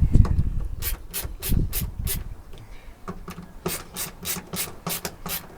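Short rasping strokes in a quick rhythm, about three a second, as the screws holding a van door mirror are driven in by hand. There is a heavy low knock right at the start.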